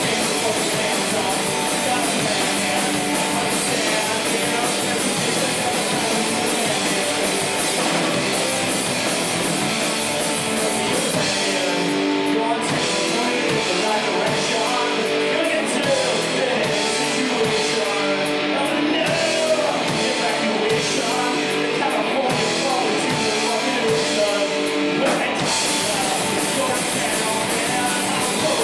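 Rock band playing live, with electric guitars, drum kit and a singer. The band thins out to a sparser passage through the middle, then comes back in full a few seconds before the end.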